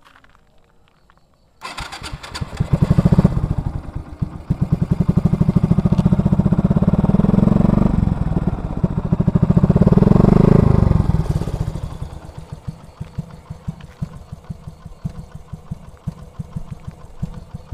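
Yamaha Byson's single-cylinder engine starting about two seconds in, breathing through an Akrapovic titanium-carbon slip-on exhaust fitted with a DB killer baffle. It is revved up and held for several seconds, revved again, then drops back to a steady pulsing idle about two-thirds of the way through.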